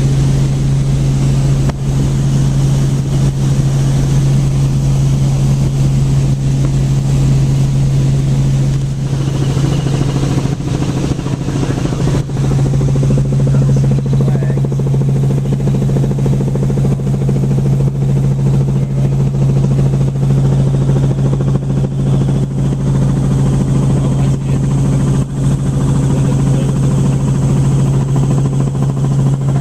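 Helicopter in flight heard from inside the cabin: a steady, loud drone with a strong low hum.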